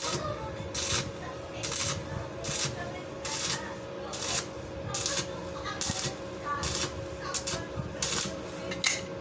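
Repeated hand strokes of an abrasive rubbing on the metal side-wheel hub, about one short rasping stroke every three-quarters of a second, a dozen in all.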